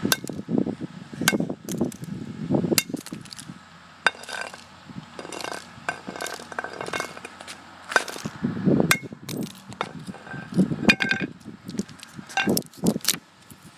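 Flip phone being smashed: a dozen or so sharp knocks at irregular intervals, with the clink of broken plastic and metal pieces.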